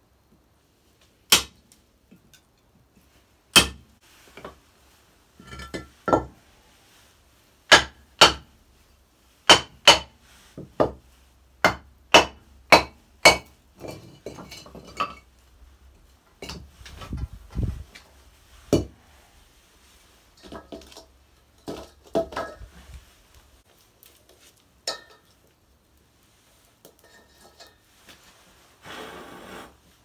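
A hammer striking a steel cold chisel set into a concrete block, giving sharp metallic clinks. There are about a dozen spaced blows, quickening to about two a second, then quieter knocks, scraping and a couple of dull thuds in the second half.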